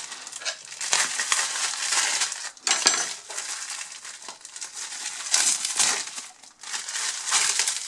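Clear plastic shrink-wrap being pulled and peeled off a pizza by hand, crinkling and crackling in repeated rustles.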